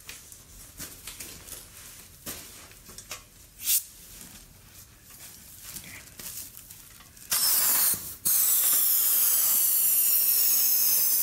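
Helium hissing from a tank's inflator valve as a 16-inch balloon inside a clear deco bubble is filled. The loud steady hiss starts about seven seconds in, breaks off briefly, then resumes, with a thin whistle in it. Before that, light rustling of plastic and small clicks of handling.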